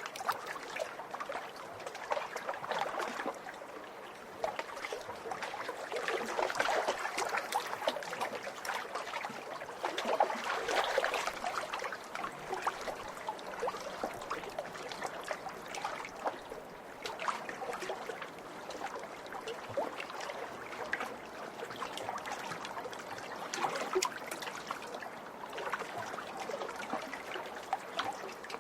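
Small lake waves lapping and splashing at the shore in a steady stream of little splashes, swelling a few times.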